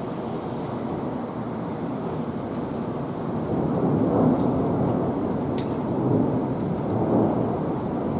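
Thunder rolling on without a break, growing louder about four seconds in and again near the end.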